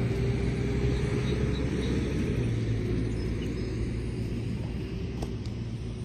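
A big vehicle driving past, its engine a steady low rumble that slowly fades.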